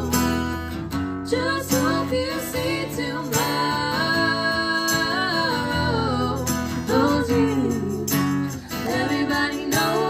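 Live band music: a strummed acoustic guitar with a woman singing.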